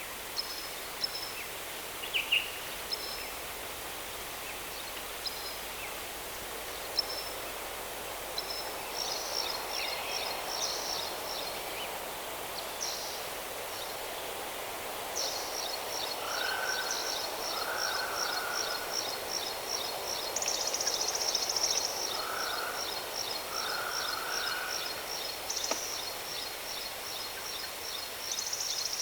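Steady rushing of a waterfall with birds calling over it: short high chirps at first, then from about halfway a rapid, high pulsing trill that runs on, with a lower short call now and then.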